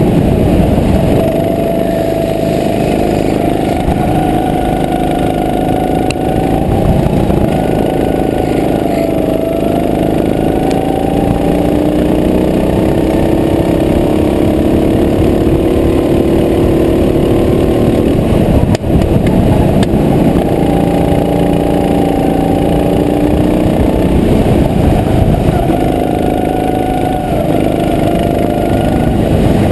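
Go-kart engine heard from on board, running continuously. Its note rises and falls as the throttle opens and lifts, with a brief drop about two-thirds of the way through.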